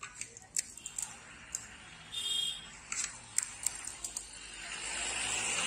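Sharp, scattered clicks and light crackles as crisp fried puri shells are cracked and handled for fuchka. A rushing hiss builds near the end and is the loudest sound there.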